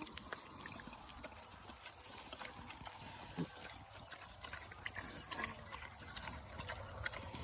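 Quiet, scattered clicks and shuffles of steps moving about on the ground among farm animals, with a brief low sound about three and a half seconds in.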